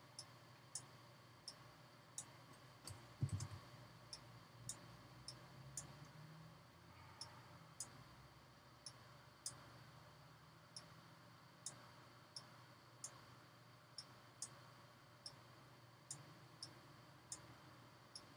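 Faint computer mouse clicks, about one a second at a fairly even pace, with one low thump about three seconds in.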